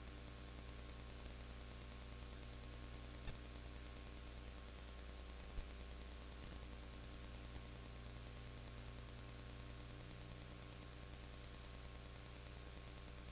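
Low, steady electrical mains hum under an even hiss, with no game sound audible. Two faint clicks come about three and five and a half seconds in.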